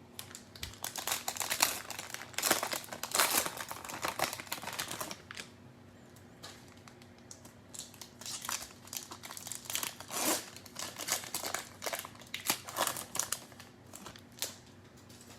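Cellophane wrapper of a trading-card cello pack crinkling and tearing as it is pulled open by hand, in two stretches of crackling with a short lull about five to six seconds in.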